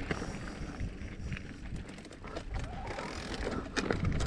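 Electric mountain bike riding over a rough trail: steady tyre rumble with scattered rattling clicks from the bike.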